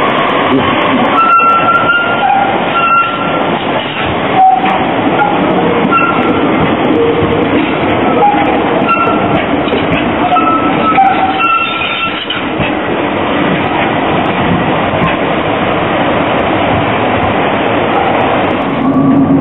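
A modern low-floor articulated tram pulling away and running past on street track, with steady running and wheel-on-rail noise. Short high-pitched squeals come and go through roughly the first dozen seconds.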